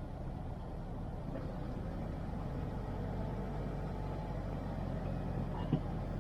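A car driving, with steady low engine and road rumble. A short sharp knock sounds near the end.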